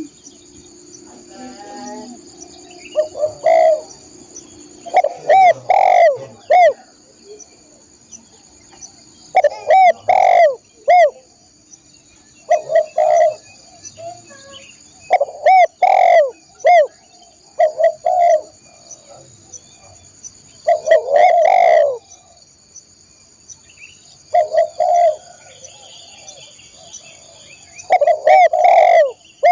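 Spotted dove (tekukur) cooing loudly: short phrases of several rounded, bending coo notes, repeated every few seconds. A steady faint high-pitched hum runs underneath.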